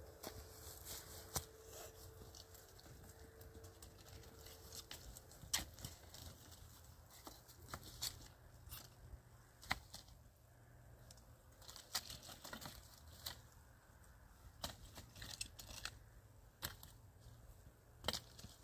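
Dry sticks and twigs clattering and snapping as they are gathered by hand and piled into a firewood bundle, with dry leaves crackling underneath. Irregular sharp clicks, scattered a second or so apart.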